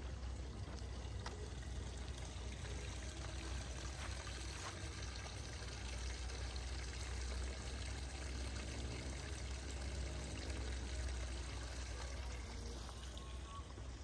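Water trickling and pouring steadily, like a small stream or brook running, over a low steady rumble.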